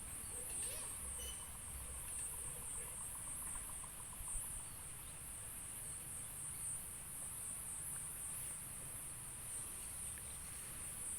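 Insects chirring in a steady, high-pitched, rapidly pulsing trill, over a faint low rumble.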